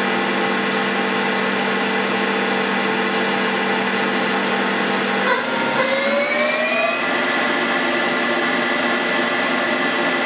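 2001 Mazak Powermaster Universal CNC lathe's spindle drive running and turning its 24-inch chuck, a steady mechanical whine made of several tones. About five seconds in the tone changes, and the whine rises in pitch for a second or so as the spindle speeds up, then holds steady.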